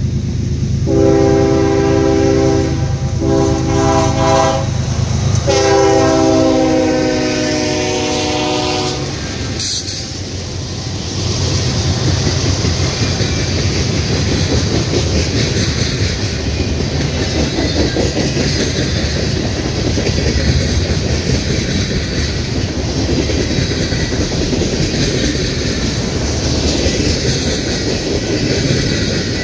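Freight locomotive's air horn sounding three blasts, the last the longest, then the freight train passing with a steady rumble and clatter of wheels on the rails.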